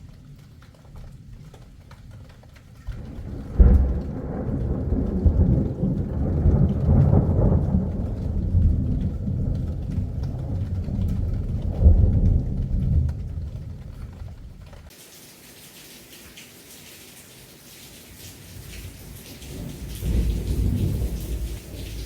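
Thunderstorm: a long roll of thunder breaks with a sharp crack a few seconds in and rumbles for about ten seconds, with a second loud peak partway through. Then steady rain hiss, and another rumble of thunder starts near the end.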